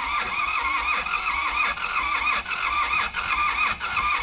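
Truck's starter motor cranking the engine over without it catching, the whine wavering up and down in an even rhythm. The engine has just blown up, and the owner reckons it is finished.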